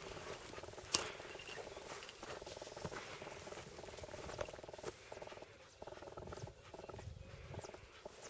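Footsteps and rustling through tall dry grass and brush, with a few sharper clicks and snaps.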